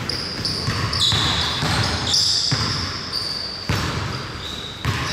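Basketball players' sneakers squeaking on the gym floor, several short high squeals in a row, with a basketball bouncing and thumping on the court a few times.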